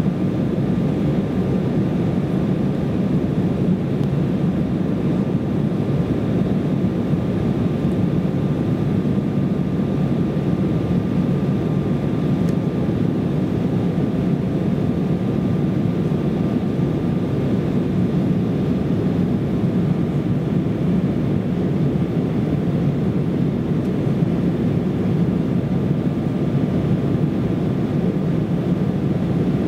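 Steady in-flight cabin noise of an Embraer ERJ-170 airliner heard from a rear seat: the low rumble of its GE CF34 turbofans and the airflow over the fuselage, with a faint steady whine above it.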